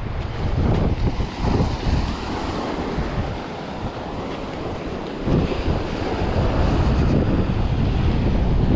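Wind buffeting the microphone over surf breaking on a sandy beach. The gusts ease about three seconds in and pick up again after about five seconds.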